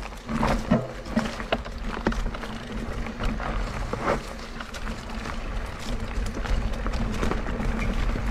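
Electric enduro mountain bike ridden over a rough trail: a constant run of sharp knocks and rattles from the bike over a steady low rumble of tyre and wind noise.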